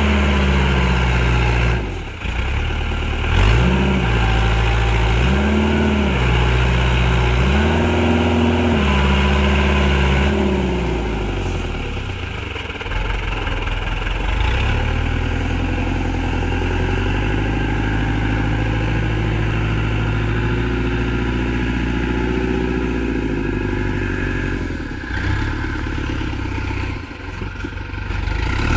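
Tractor engine revved up and back down several times, then running steadily at a lower, even pitch.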